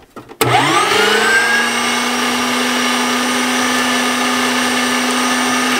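A Cuisinart electric meat grinder is switched on with a click. Its motor spins up with a rising whine over about a second, then runs steadily while grinding chicken thighs.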